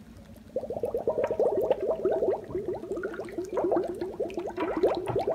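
Glass beer bottle held under water and filling, with air glugging out of its neck in a rapid, continuous run of rising gurgles that starts about half a second in.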